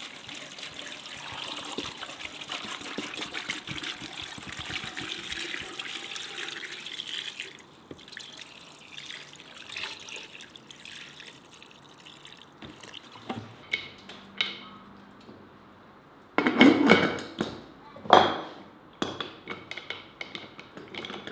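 Water poured steadily from a plastic bottle into an Afghan kazan over chunks of potato and carrot, running for about seven seconds and then stopping. Later come small clicks, then two loud knocks and some clatter as the kazan's lid is put on and its clamp fitted.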